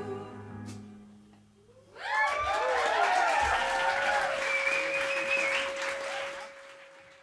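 A small jazz band's last held chord, with trumpet and trombone, dies away. After a short pause the audience breaks into applause with cheers and whistles, which fades out near the end.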